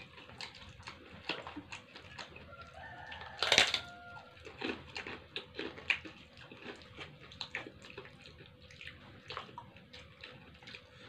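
Mukbang eating sounds: close-up chewing and crunching of nasi pecel with krupuk crackers, eaten by hand from a paper wrapping, a run of short clicky crunches with one loud crackle about three and a half seconds in.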